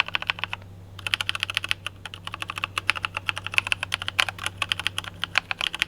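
Rapid typing on a Logitech G715 mechanical keyboard with tactile brown switches: a quick, dense run of keystroke clicks, not loud, after a brief pause near the start.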